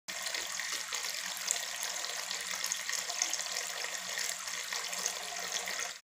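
Water from a small tiered cement tabletop fountain trickling and splashing steadily from the upper bowl into the pebble-filled basin, with a faint steady hum underneath.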